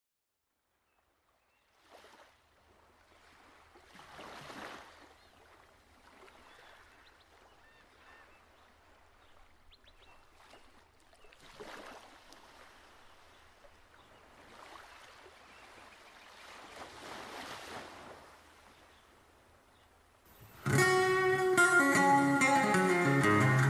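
Faint swelling whooshes of noise that rise and fall, several seconds apart. Near the end, music starts loudly with plucked guitar.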